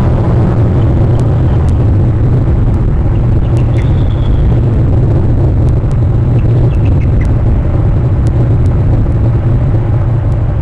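Loud steady low rumble throughout, with a few faint, brief high-pitched eagle calls, a trill, about four seconds in and again about seven seconds in.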